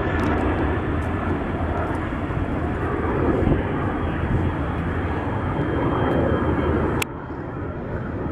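Jet engines of a Boeing 747 Shuttle Carrier Aircraft carrying a Space Shuttle, a steady rumble as it flies over. The sound drops suddenly near the end.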